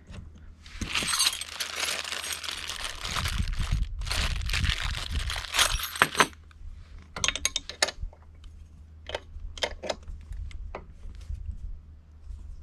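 Metal parts and hand tools clinking and rattling while an e-bike's front wheel is fitted: two stretches of dense scraping and rattling, then a run of separate sharp clicks.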